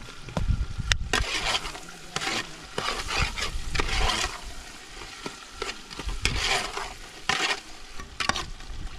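Metal spoon stirring and scraping around a large aluminium pot of food frying on a gas burner, in repeated uneven strokes, with a sharp clink about a second in.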